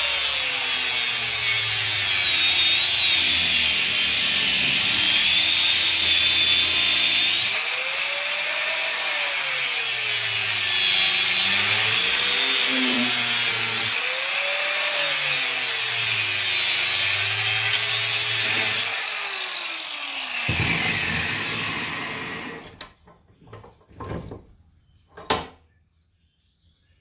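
Angle grinder with a cut-off wheel cutting into the copper windings of an electric motor stator. Its pitch drops and recovers several times as the wheel is pressed into the work. About 20 seconds in it is switched off and spins down, followed by a few sharp metal knocks.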